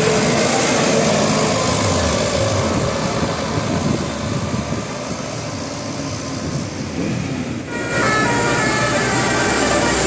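Bus engine and road noise as a bus goes by. About eight seconds in, a multi-tone telolet horn starts, playing a melody of tones that step up and down in pitch.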